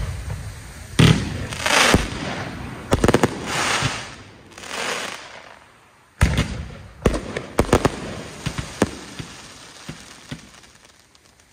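Aerial fireworks: sharp bangs of shells launching and bursting, about a second in, a quick run near three seconds, and a cluster from about six to nine seconds, with hissing, crackling stretches between them. The bangs thin out and fade near the end.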